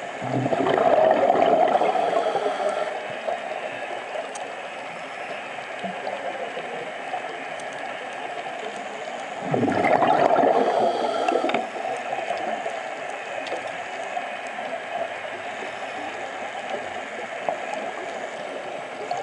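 Scuba regulator exhaust bubbles gurgling past the underwater camera, twice, about nine seconds apart, each lasting about two seconds. Between them is a steady underwater hiss with scattered faint clicks.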